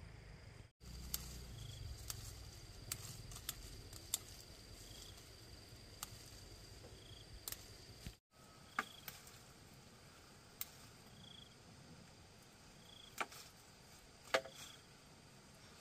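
Scattered sharp clicks and snaps over a quiet outdoor background, the loudest near the end, with a short high chirp repeating every second or two.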